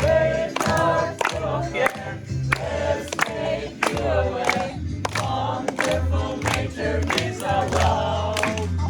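Music with a steady beat, about two strokes a second, and voices singing together over it.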